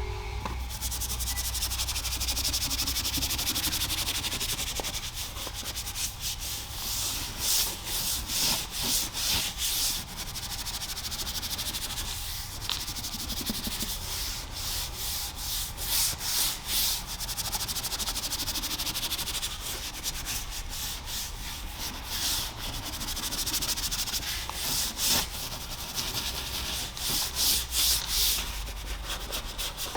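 A bristle brush scrubbing engine-bay surfaces in quick back-and-forth strokes that come in clusters, over a steady hiss.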